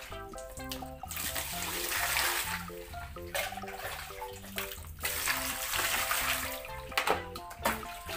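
Background music, a light melody of short notes, with water being poured and splashing over a plastic toy dump truck in two stretches, about a second in and again around five seconds in.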